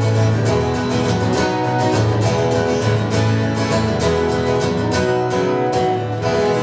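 Three acoustic guitars strumming together in an instrumental ending to a country-gospel song, with no singing.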